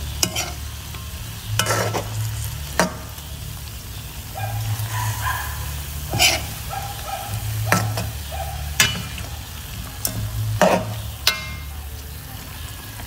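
Metal spoon stirring frog adobo in a metal wok, clinking sharply against the pan every second or so, over the sizzle of the simmering soy-sauce liquid.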